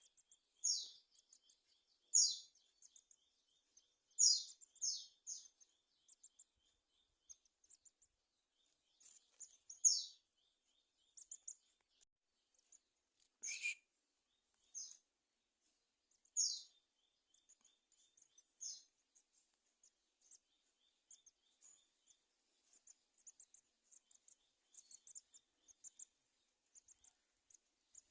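A small bird giving short, high-pitched chirps, each a quick downward sweep, about a dozen of them at irregular intervals, over a faint, fast ticking trill.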